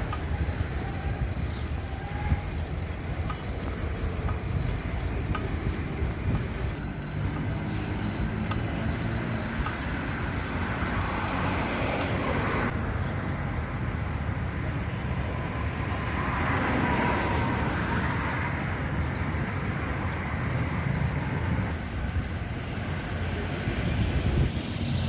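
City street traffic: a steady low rumble of engines and tyres, with vehicles passing by, the loudest passes building about ten seconds in and again around seventeen seconds.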